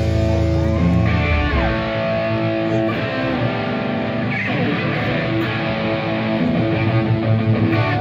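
Electric guitar playing over a live rock band, with notes bent up and down in pitch near the start.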